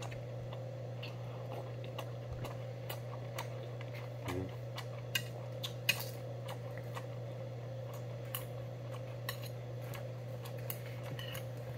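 Metal chopsticks and a spoon clicking and scraping against stainless-steel bowls and tray while eating: scattered light ticks, with two sharper clinks about five and six seconds in, over a steady low hum.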